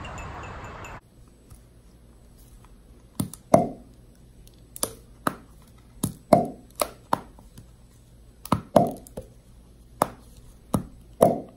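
A red-lidded plastic candy container being handled close up, giving about a dozen sharp plastic clicks and knocks in irregular pairs and threes. A steady outdoor hiss cuts off about a second in.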